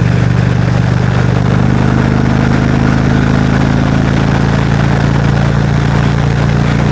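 Motorcycle engine running steadily at road speed under a loud rush of wind noise; the engine note climbs slightly about a second and a half in.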